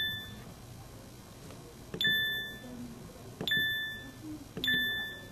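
Key-press tones from a Pantech SKY IM-S320K mobile phone: three short beeps about a second and a half apart, each fading over about half a second, with the soft click of the pressed key under it.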